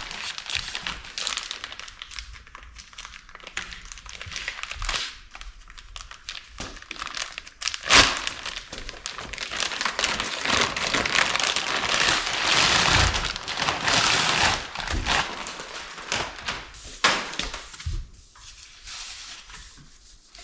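Plastic wrap and foam packing being crinkled and pulled off new exhaust mufflers, in irregular rustling spells with one sharp knock about eight seconds in.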